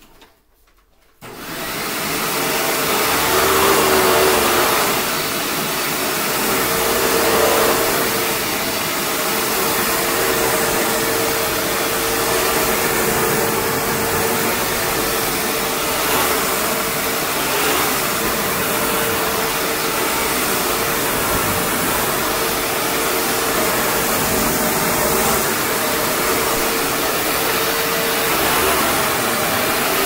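2007 Hoover WindTunnel Twin Chamber bagless upright vacuum cleaner with a Maytag motor switched on about a second in. The motor spins up within about a second and then runs steadily: a loud rush of air with a constant tone.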